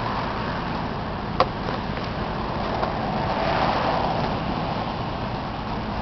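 Steady outdoor street noise from road traffic, swelling as a vehicle passes near the middle, with a single sharp click about a second and a half in.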